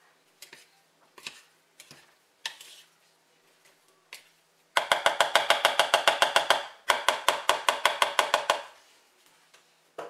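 A wooden spoon scrapes softly as it folds batter in a mixing bowl. About halfway through come two runs of rapid, even knocks, about ten a second for roughly two seconds each: the spoon rattled against the bowl to shake the batter off it.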